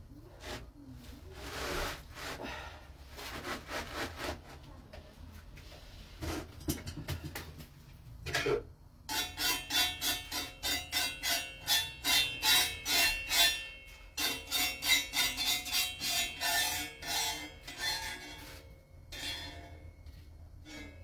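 A knife blade scraping against a blackened griddle. Slow, scattered scrapes give way about halfway through to quick, steady strokes of about four a second.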